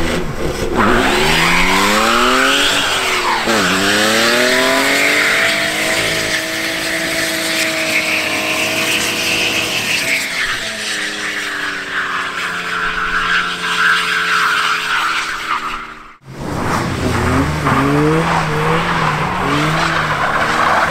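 Car engine revved hard with wheels spinning, the revs climbing, dropping and climbing again several times and held high for long stretches: a stuck car trying to pull free. The sound cuts out for a moment near the end.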